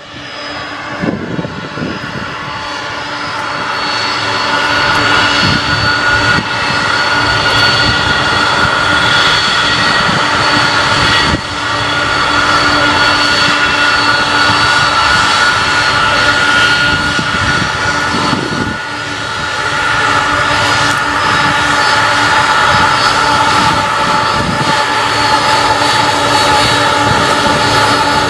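Boeing 747-400's four turbofan engines running at taxi power: a steady, high-pitched jet whine made of several held tones over a rumble, building over the first few seconds and dipping briefly twice.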